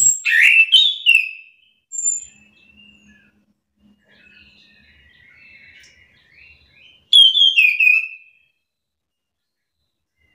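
Chestnut-capped thrush singing: a loud, fast run of whistled notes at the start, softer twittering in the middle, and another loud whistled phrase about seven seconds in.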